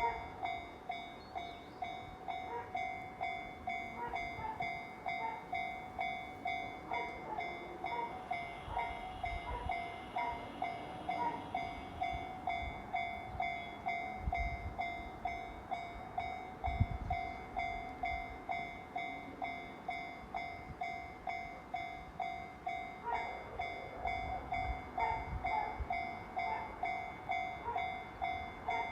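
Japanese railway level-crossing alarm ringing its electronic "kan-kan" bell, evenly repeated at about one and a half strokes a second: the newly installed Class 1 crossing is in operation.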